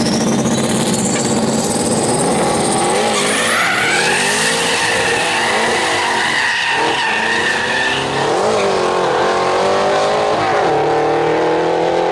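Two street-race cars launching side by side at full throttle. A high whistle rises in pitch as they leave, then the tires squeal for several seconds as one car spins its rear tires. The engine note falls and climbs again twice as they pull away through the gears.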